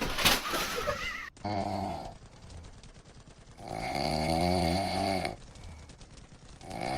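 A pet snoring: three long, wavering snores a couple of seconds apart, after a short unrelated noise that cuts off about a second in.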